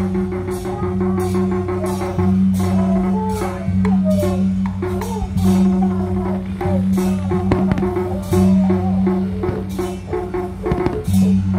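Festival music with drums and percussion and a wavering melody, over a steady low hum. Repeated sharp bangs from fireworks going off sound through it.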